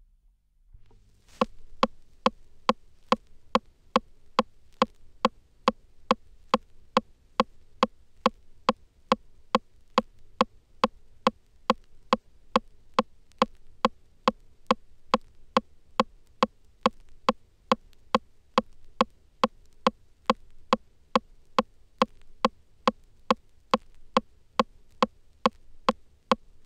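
A lone electronic percussion hit, sharp and clicky, repeating at a steady dance tempo a little over two times a second from a record being mixed on the turntables, over a faint low hum. It starts about a second and a half in.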